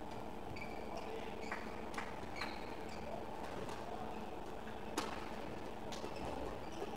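Badminton doubles rally: racquets strike the shuttlecock with several sharp, irregular cracks, the loudest about five seconds in. Short high squeaks from shoes on the court floor come in between, over a steady low hum.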